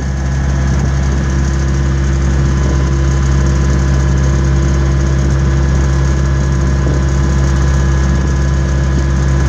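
Skid steer engine running steadily at a constant speed.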